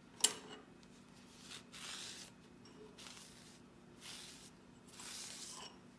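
A sharp metallic click, then four soft swishing strokes as a shop rag is wiped over the chips in a milling-machine vise.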